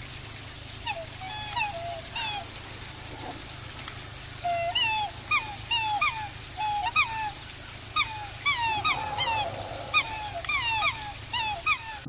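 Black swans calling: short calls that rise and fall in pitch. A few come at first, then from about four and a half seconds in a rapid, overlapping series of calls.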